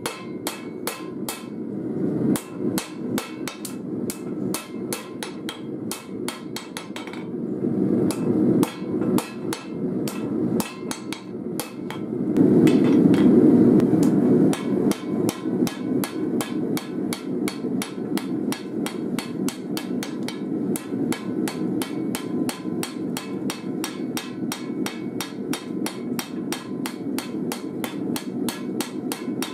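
Hand hammer striking a red-hot steel knife blade, forged from a file, on an anvil: an even run of sharp blows, about three a second, drawing out the blade. A steady low rumble runs underneath and swells for a couple of seconds near the middle.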